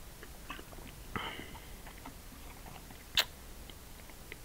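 A person drinking from a plastic shaker bottle: quiet sipping and swallowing noises, with one sharp click about three seconds in.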